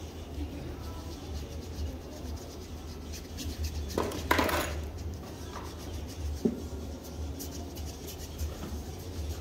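Pedicure foot file rasping over the sole of a foot in repeated short strokes, with one louder scrape about four seconds in, over a steady low hum.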